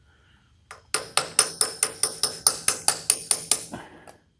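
Quick metallic taps on the vintage Enco horizontal bandsaw's gear-oil box, about four a second for nearly three seconds, each ringing briefly, as a tool works the box open.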